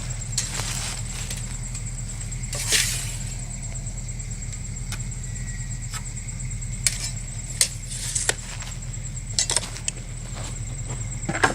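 Light scattered clicks and a short scraping sound from hand tools and wood being handled while a board position is measured and marked. A steady low hum runs underneath.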